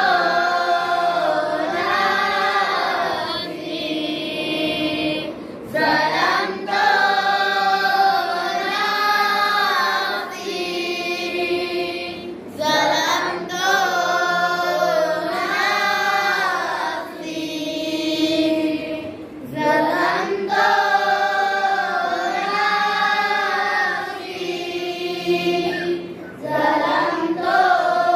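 A group of boys chanting a devotional prayer (dhikr) together in unison, melodic and sustained, in long phrases with a short pause for breath about every seven seconds.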